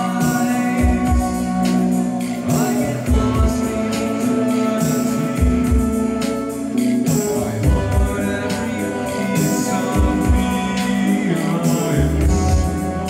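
Live band playing a song, with a singer's voice over guitar, bass and a steady drum beat.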